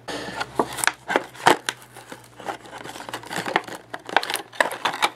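Plastic blister and cardboard backing card of a Hot Wheels toy package crinkling and crackling as hands pull them apart, with irregular sharp clicks throughout.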